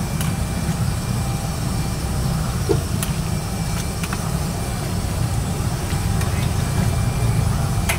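Steady low roar of a high-pressure gas burner firing under a large steel wok, with a few light clinks of a metal ladle against the wok as the broth is stirred.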